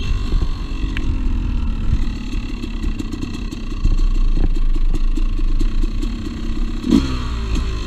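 Two-stroke dirt bike engine running at low, steady revs, with a quick rev blip about seven seconds in.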